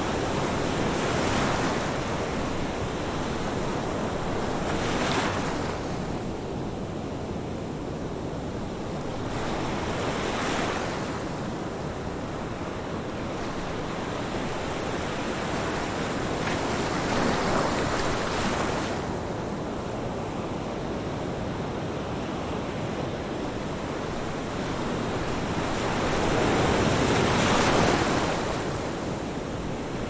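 Ocean surf: a steady rush of breaking waves that swells each time a wave breaks, every few seconds, with the biggest swell near the end.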